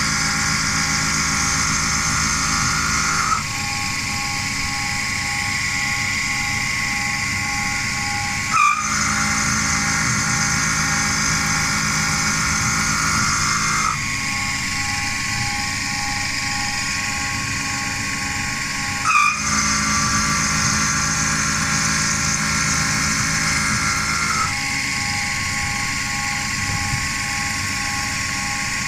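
Homemade CNC milling machine running a repeating cycle: a steady whine of several pitched tones whose pattern switches about every five seconds, with a short swooping sweep in pitch about every ten seconds.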